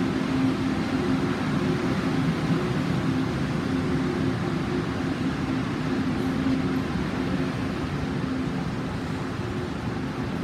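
Taiwan Railways passenger coaches rolling slowly past along an underground station platform: a steady rumble of wheels on rail with a low hum, easing off slightly near the end.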